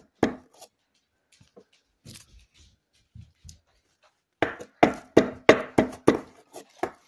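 Sharp knocks of a hand pick chipping into a gem-dig block: a few strikes at the start, then a quick run of about eight knocks in the last two and a half seconds.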